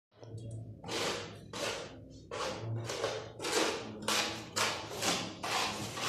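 A trowel scraping and spreading grey tile adhesive on the floor bed for a marble tile, in repeated strokes about two a second, each starting sharply and fading.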